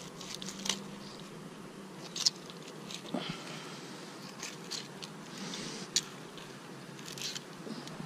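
Knife cutting a small bluegill into cut bait on a rock: scattered light clicks and scrapes of the blade on the fish and the stone. The sharpest click comes about two seconds in, and another about six seconds in.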